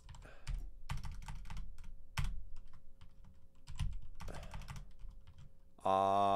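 Computer keyboard typing: irregular runs of key clicks, with pauses between them. A man's voice starts a drawn-out sound near the end.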